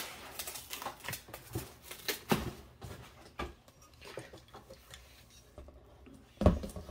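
Handling noise as a 3D printer's aluminium gantry frame is lifted out of its foam packaging in a cardboard box: scattered light knocks, clicks and rustles, with one heavier thump near the end.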